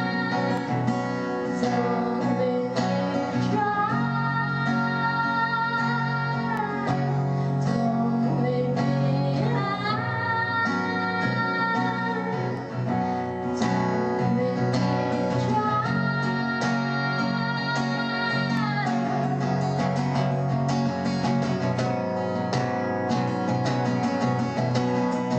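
A song with guitar accompaniment and a woman singing, her long held notes gliding up into place three times.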